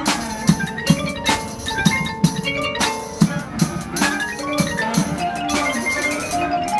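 High school marching band performing, its front ensemble of marimbas and glockenspiel playing quick runs of ringing notes over drum strikes about twice a second; the drum strikes thin out near the end, leaving the mallet runs.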